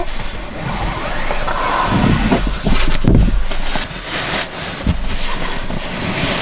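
Fabric and bedding rustling as a sleeping mat and a padded jacket are handled and moved about, with a few dull thumps about two and three seconds in.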